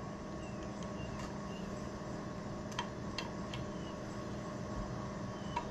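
Steady low machine hum, with a few faint light clicks scattered through it.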